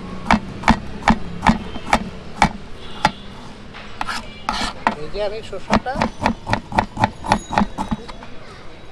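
Knife chopping vegetables on a cutting board in a steady rhythm, about two to three strokes a second, quickening near the end.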